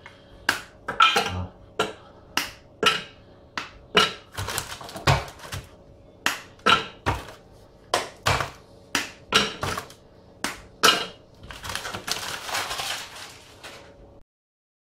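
Bars of dark chocolate snapped into squares by hand and dropped into the Thermomix's steel mixing bowl: a run of sharp cracks, about two a second. A second or so of rustling comes near the end.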